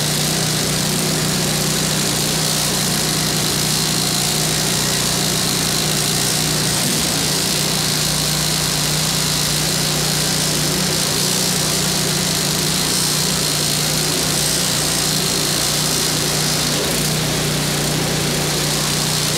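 Craftsman snowblower's 5.5 hp Tecumseh single-cylinder four-stroke engine running steadily at a constant speed, warming up on a test run after new belts were fitted.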